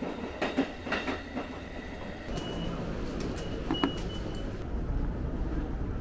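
Railway station ambience: footsteps and clicks over a steady background, then short high electronic beeps from an automatic ticket gate as it is passed through, and a steadier low rumble toward the end.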